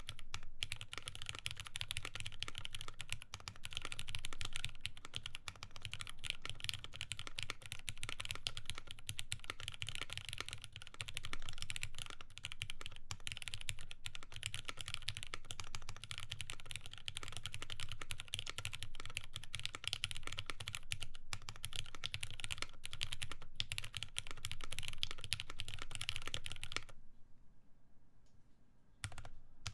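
Mechanical keyboard with lubed Cherry MX Black linear switches, a polypropylene plate and GMK keycaps, typed on quickly in a steady stream of keystrokes. Near the end the typing stops for about two seconds, then a few single keystrokes follow.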